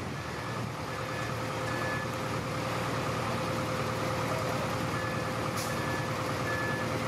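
Huina radio-controlled toy excavator running: a steady mechanical hum with a constant tone, broken by short high beeps in two runs of three, one near the start and one after about five seconds. A brief hiss comes a little after halfway.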